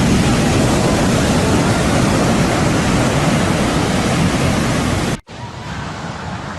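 Loud, steady rush of big ocean waves breaking and surging, cutting off abruptly about five seconds in to a quieter rush of surf.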